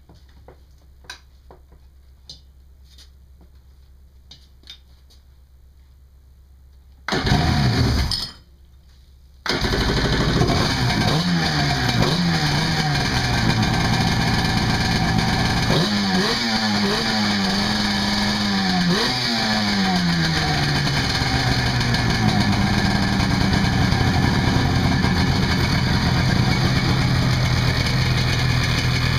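Faint clicks of hand work on a Kawasaki SX 750 jet ski's two-stroke twin, bored out to 815 cc with twin carburettors, followed about seven seconds in by a short loud burst. About two seconds later the engine catches on its first start and runs, its revs rising and falling several times, then settling into a steady idle.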